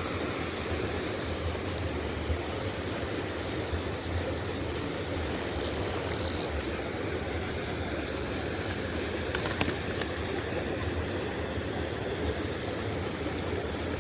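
Steady rush of water in a mountain stream, with a brief higher hiss about five seconds in and a single sharp click about nine and a half seconds in.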